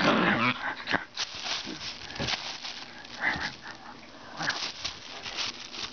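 Small dog vocalizing while tussling over a plastic air-pillow packing bag, with the plastic crinkling; the loudest sound comes in the first second.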